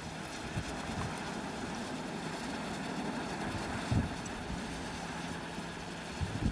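Iskra R9000 small wind turbine turning in a steady wind, giving only a quiet whistling from its rotor. Gusts buffet the microphone with short low thumps, the strongest about four seconds in.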